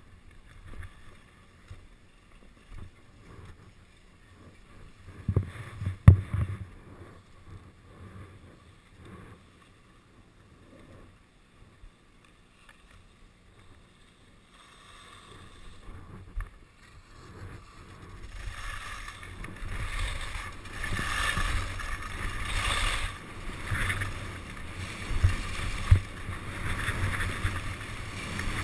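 Skis sliding on a groomed snow slope with wind on the microphone. The first half is fairly quiet, with scattered knocks and one sharp knock. From about two-thirds of the way in, a steady rushing scrape of ski edges on snow and wind noise grows louder as the skier picks up speed downhill.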